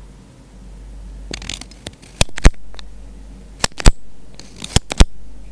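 Pen writing on paper: short scratchy strokes and sharp taps of the pen tip, several of the taps coming in pairs about a quarter second apart.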